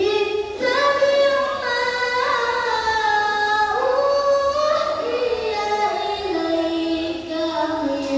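A child reciting the Quran in the melodic tilawah style: one long, ornamented phrase that begins abruptly and slides through several held notes, stepping gradually lower in pitch toward the end.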